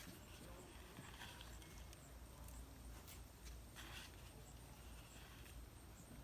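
Near silence, with faint scattered rustles and soft knocks of hands digging through the soil in a 5-gallon bucket of potatoes. The loudest comes about four seconds in.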